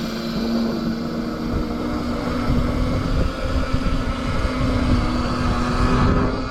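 Wind buffeting the microphone while riding, with uneven low rumbling over a steady droning motor hum.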